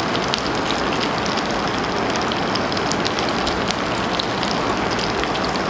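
Hakka stuffed tofu, meat-stuffed bitter gourd and eggplant sizzling steadily in hot oil in a non-stick frying pan, with many small crackles. They are frying slowly over gentle heat until golden, since too high a heat would scorch them.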